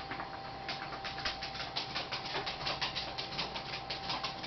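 A fast, even run of light clicks, several a second, starting just under a second in and dying away near the end, over a faint steady tone.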